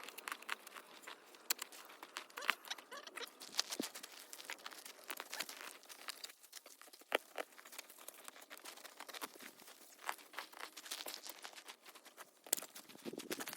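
Leafy privet shrub branches rustling, crackling and snapping as they are handled and cut out, heard as a dense, irregular run of small cracks and rustles.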